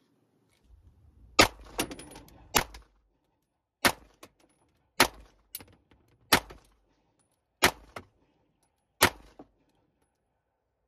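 Smith & Wesson M&P9 Metal Carry Comp 9mm pistol, whose slide is ported as a compensator, fired slow and one shot at a time. The sharp shots come about a second and a quarter apart, each followed by a fainter crack.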